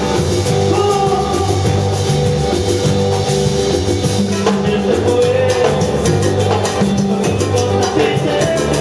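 A Latin dance band playing live: a stepping electric bass line and keyboard over a steady percussion beat, with the singers' voices on top.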